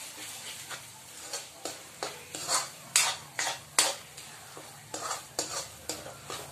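Metal spatula scraping and stirring crumbled milk cake frying in ghee in a metal kadhai, in repeated strokes that grow louder and quicker from about two seconds in, over a faint sizzle.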